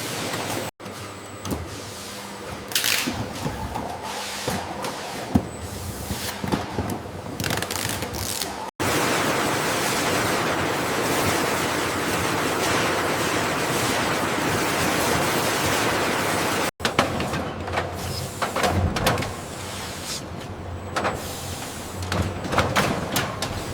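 Factory machinery noise in separate cut-together stretches: irregular mechanical clatter and clicks, then a steady even hiss for about eight seconds in the middle, then clatter again.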